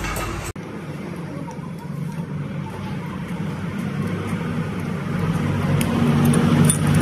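Steady road-traffic noise with a low engine hum that grows louder toward the end, as of a vehicle passing close by. A few faint light clicks sound in the later seconds.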